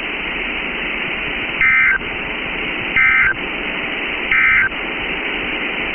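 Three short bursts of the EAS end-of-message (EOM) code, two-tone digital data, about a second and a half apart, closing the alert broadcast. Under them runs a steady hiss of weather-radio static.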